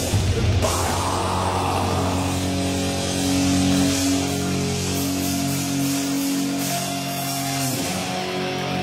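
Death metal band playing live: a dense burst of drums and a vocal in the first second or two, then distorted electric guitars holding long ringing chords over a steady high hiss. A new guitar figure starts near the end.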